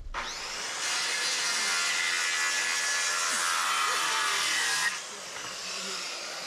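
Circular saw spinning up and cutting through a wooden board for about five seconds, the cut ending abruptly, then the blade winding down with a falling whine.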